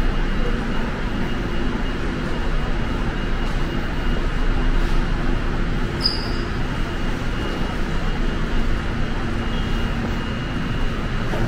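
Steady hum and rush of an underground subway station platform's machinery, ventilation and equipment, with a brief high chirp about halfway through.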